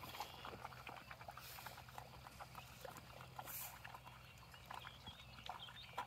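A pig eating feed close by: a faint, irregular run of small chewing and crunching clicks, with two short breathy puffs.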